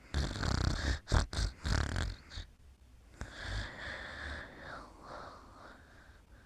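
Snoring from a sleeper: several loud, rough snoring breaths in the first two seconds or so, then one softer, longer wheezy breath that fades out.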